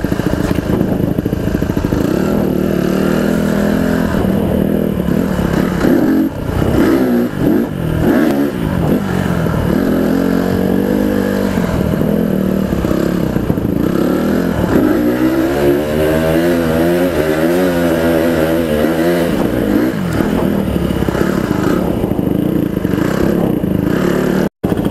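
Honda CRF150R dirt bike's single-cylinder four-stroke engine running under the rider on a trail, heard through a helmet-mounted mic. The revs rise and fall as the throttle and gears change, with a long climbing rev about two-thirds of the way through. The sound cuts out for an instant near the end.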